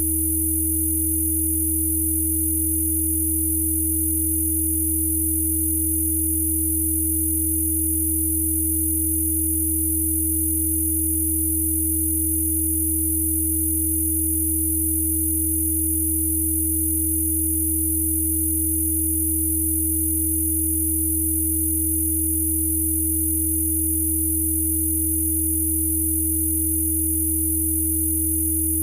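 Electronically generated Rife frequency sine tones, as used by Spooky2, sounding together and held perfectly steady: a deep low hum, a clear tone above it, and a very high thin whine.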